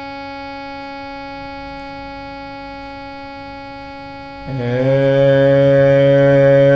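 A steady sustained drone note holds one unchanging pitch. About four and a half seconds in, a man's voice joins it, holding a long steady note an octave below to match the drone. The note is sung lightly, in a thin voice with the mouth barely open.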